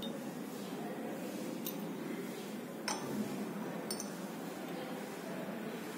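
A few light glass clinks, about three, as a glass dropper touches a test tube while dilute nitric acid is dropped in, over a faint steady hiss.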